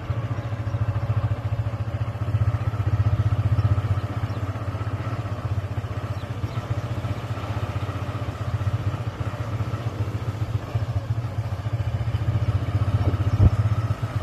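A motorcycle engine running steadily with a fast, even low pulse, rising and easing slightly in level, with a single knock near the end.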